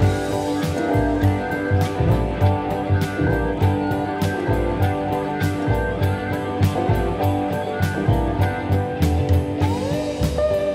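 Background music with a steady beat and held instrumental notes, with one note sliding upward in pitch near the end.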